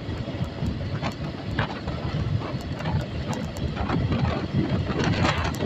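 Suzuki Gixxer motorcycle engine running under way at about 65 km/h, picking up speed, with wind rushing over the handlebar-mounted phone microphone.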